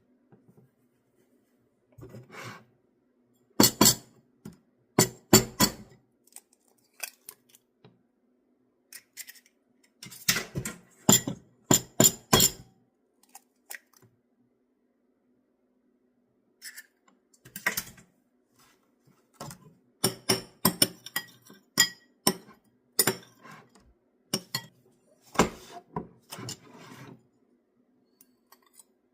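Kitchen utensils and dishes clinking and knocking in irregular bursts of sharp taps, over a faint steady hum.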